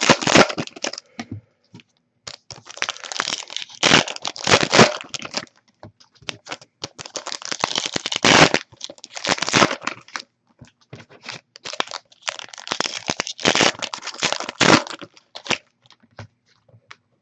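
Trading-card pack wrappers being torn open and crumpled by hand, crinkling and crackling in several bursts with short pauses between.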